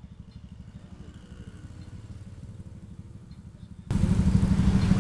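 Motorcycle with an aftermarket exhaust idling with a steady low pulsing, quiet at first, then suddenly much louder about four seconds in.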